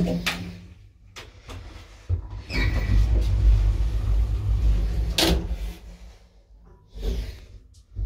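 1960s Del Bo traction elevator in use: a few sharp clunks of its doors and gear, about two and a half seconds apart, over a low rumble that swells in the middle and fades away.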